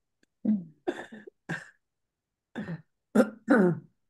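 A person clearing their throat and coughing in about six short bursts, heard over a video call's audio, with dead silence between the bursts.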